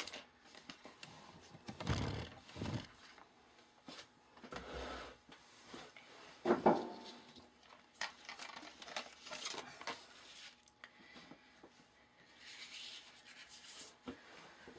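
Cardstock and paper strips handled and slid across a craft mat: scattered rustling and rubbing with a few soft knocks, the loudest about two seconds and six and a half seconds in.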